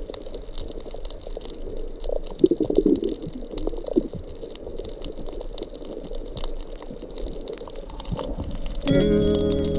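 Running, splashing water, with many small ticks and drips through it. Music comes in near the end.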